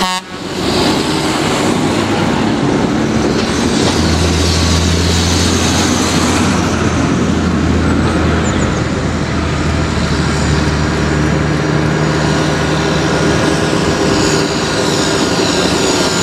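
Farm tractors' diesel engines driving past on a road, with a broad rushing noise throughout and a steady low engine hum from about four seconds in until past the middle.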